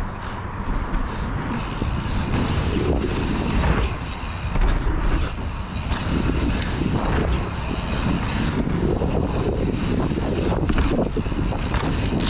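Mountain bike ridden at speed through a dirt jump line: wind rushing over the camera microphone and knobby tyres rolling on packed dirt, with scattered knocks and rattles from the bike.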